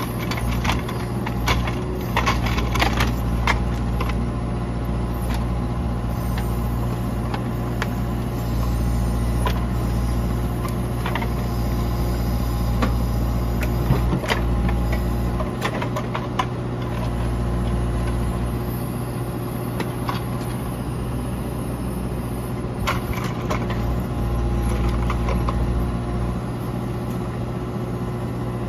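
Morooka MST600 crawler forwarder's diesel engine running steadily under load while its hydraulic grapple loader lifts logs onto the bunk. Now and then sharp knocks come as the logs strike each other, in clusters early on and again near the end.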